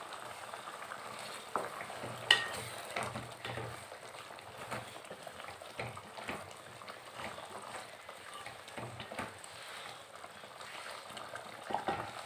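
Tamarind brinjal curry bubbling at a boil in a pot while a spatula stirs it, with scattered small clicks and taps and one sharper knock about two seconds in.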